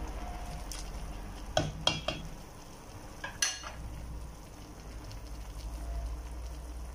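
Chicken and vegetable stew cooking in a stainless steel pot over a steady low hum. A utensil clinks sharply against the pot several times between about one and a half and three and a half seconds in.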